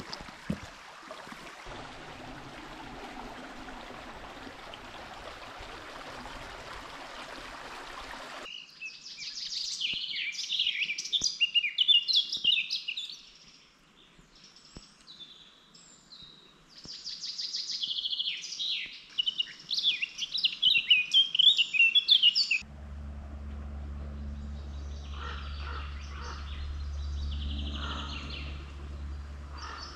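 Babbling stream water, cut off abruptly about a third of the way in. Then a songbird sings rapid, repeated chirping phrases in two bouts. Near the end a low steady hum sits under fainter bird calls.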